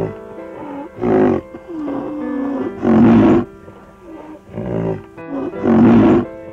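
Three loud, short animal calls, about a second in, at three seconds and near six seconds, over background music with steady held notes.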